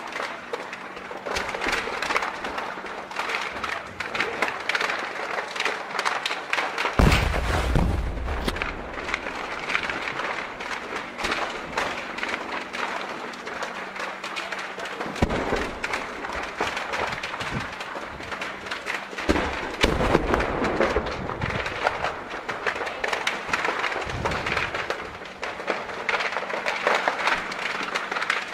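Gunfire crackling steadily during a battle, with four heavy blasts of explosions, the loudest about a quarter of the way in and the others around the middle and later on.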